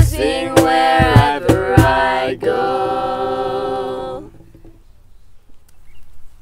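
Girls singing with acoustic guitar and cajon, ending a song: the cajon hits stop after about two seconds, and the last chord and voices are held until about four seconds in, then stop. A quiet pause follows.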